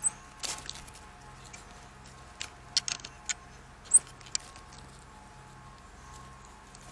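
South American coati moving and foraging through dry leaf litter: a scattered run of short, sharp crackles and rustles, the loudest about four seconds in.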